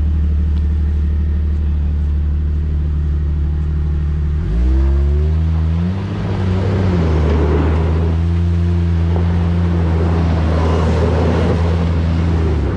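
Engines working under load during a tow-strap recovery of a Jeep Cherokee XJ stuck in a mud hole. A steady engine drone revs up sharply about four and a half seconds in, then holds steady with a rough rushing noise over it.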